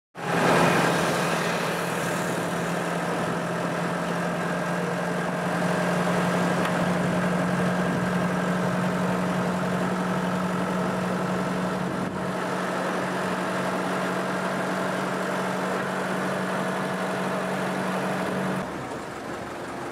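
Isuzu Elf-based songthaew truck-bus's engine running steadily with a low, even hum, heard from the wooden passenger bed in the back. Near the end the hum stops abruptly, leaving quieter road noise.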